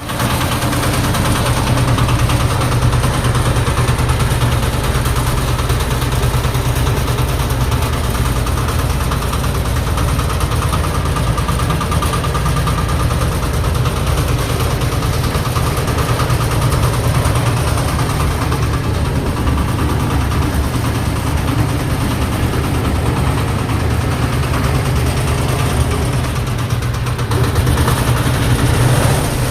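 Dongfeng 8 HP single-cylinder diesel engine running steadily, driving a Tiger concrete mixer.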